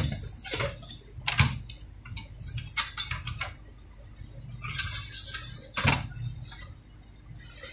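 Hands working parts back into a welding machine's metal chassis: three sharp knocks, at the start, about a second and a half in and about six seconds in, with bursts of light metallic clicking and rattling between them.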